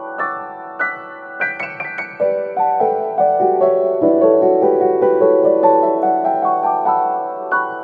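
Background piano music: gentle melodic notes and chords, with a quick run of notes about a second and a half in.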